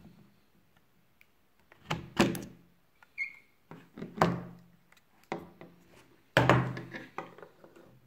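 Plastic three-port USB wall charger and its cable being handled, unplugged and set down on a wooden table: a series of clunks and knocks with a short squeak between them, the loudest knock near the end.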